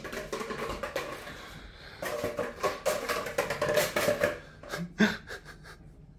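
Cardboard paper towel tube batted and rolled by kittens across a vinyl floor: a busy run of scraping, rattling taps with scrabbling paws, and a sharp knock about five seconds in.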